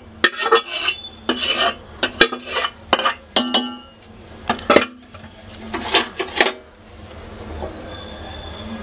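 A metal spoon scrapes and clinks against stainless steel pots as leftover meat curry is scraped out onto the layered biryani rice. The scraping stops about six and a half seconds in, leaving a low steady hum.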